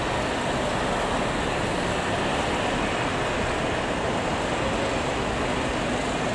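Steady outdoor background noise: an even hiss and rumble with no distinct events.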